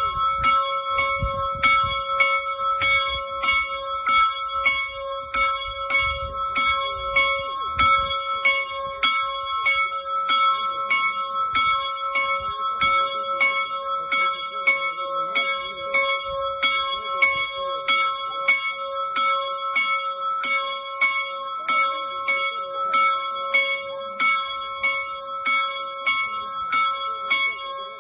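A new small bell, tuned to C sharp (cis3), 35 kg and 370 mm across, swung by its rope so the clapper strikes it in an even rhythm, its ring sustaining between strokes.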